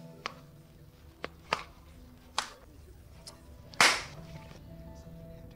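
A few sharp clicks and snaps, the loudest a little under four seconds in with a short hissing tail, over a faint steady low hum.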